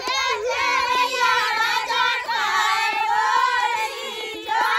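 A group of women singing a Bundeli folk wedding song together, several high voices at once, with scattered hand claps.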